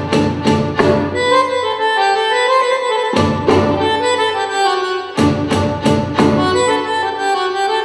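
Recorded Egyptian oriental dance music: a sustained melody over drum strikes that come in short groups, with a bass layer dropping in and out.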